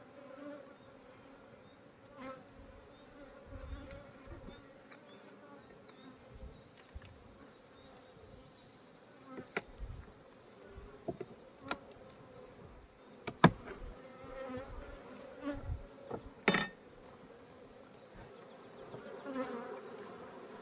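Honeybees buzzing steadily around an opened hive, agitated by the inspection. A few sharp clicks or knocks sound through it, the loudest about thirteen seconds in.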